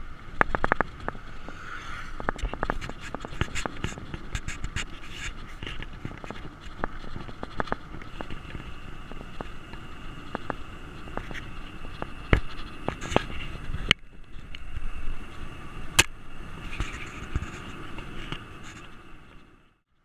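Mountain bike rolling over rough, patched asphalt: tyre rumble with frequent sharp rattles and clicks from the bike, over a steady hiss of wind.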